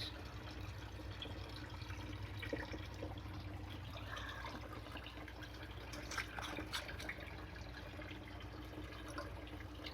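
Steady trickle of running water over a low, steady hum, with a few faint handling clicks about six to seven seconds in.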